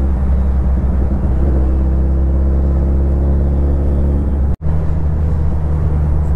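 A vehicle engine running steadily, a deep rumble with a steady hum over it. The sound cuts out for an instant a little over four seconds in and comes back with a slightly different hum.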